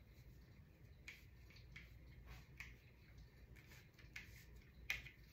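Near silence broken by about five faint, short clicks and taps of tarot cards being handled and laid down, the sharpest one near the end.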